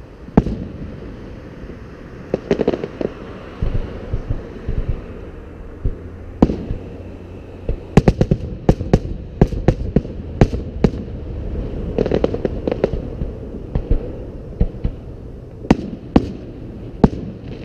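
Aerial firework shells bursting in a display: a string of sharp bangs and cracks, packed most closely about halfway through, over a steady low background noise.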